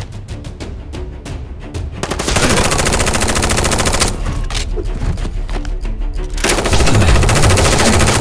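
Rapid automatic gunfire, the sound laid over an orange Nerf blaster being fired, in two long bursts: one about two seconds in and one near the end, with single shots in between. Music plays underneath.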